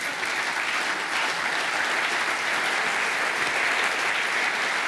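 Studio audience applauding, steady dense clapping throughout.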